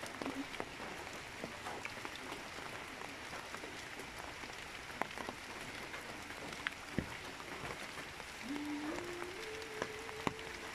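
Steady rush of a rain-swollen, muddy river in flood mixed with falling rain, with scattered sharp drips and taps. Near the end a faint steady tone comes in, stepping up in pitch twice and holding.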